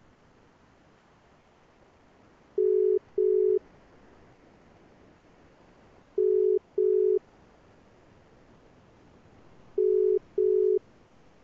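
Telephone ringback tone: three pairs of short beeps at one steady low pitch, each pair following the last after about three and a half seconds.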